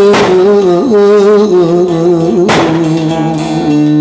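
A man singing a Turkish bozlak-style folk phrase with wavering melisma, then holding a long steady note, to the accompaniment of a bağlama (saz) whose strings are struck sharply twice, just after the start and about halfway through.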